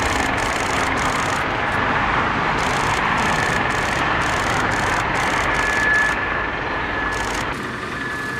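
Boeing 747 freighter's jet engines running as it taxis, a steady high whine over the roar of heavy motorway traffic passing below. About seven seconds in, the low rumble drops away and the sound thins.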